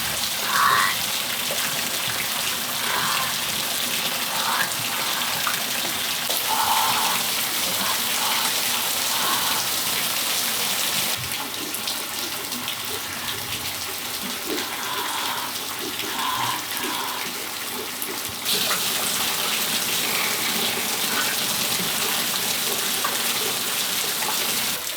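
Steady rain falling on a patio, an even hiss with short louder splashes every few seconds. The rain lightens for several seconds around the middle, then picks up again suddenly.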